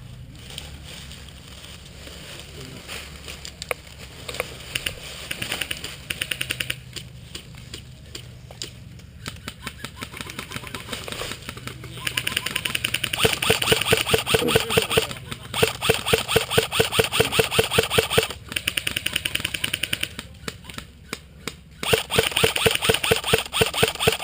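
Airsoft guns firing on full auto in several long bursts of rapid, evenly spaced shots, after a few scattered single shots and clicks.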